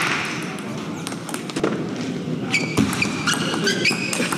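A table tennis rally: the plastic ball clicking off the paddles and the table, then a run of high squeaks from the players' shoes on the court floor in the second half as the point ends.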